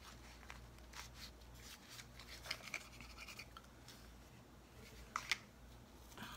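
Faint rustling and scraping of paper and thin card as a small card box is slid open and a bundle of paper stickers is handled, with scattered small clicks and one sharper tick about five seconds in.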